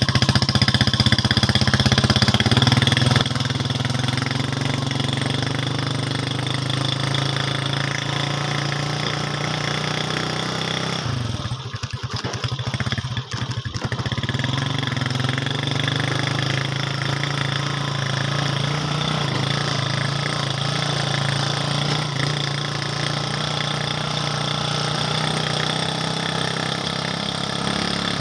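Motorcycle engine running steadily, heard from on board while riding along a dirt lane. About halfway through, the engine note drops and goes uneven for a few seconds, then picks up steadily again.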